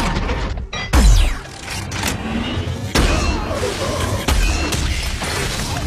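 Film sound effects of sci-fi energy-weapon blasts and explosions: a heavy blast with a deep boom and a falling sweep about a second in, then more sharp shots and impacts, with film score music underneath.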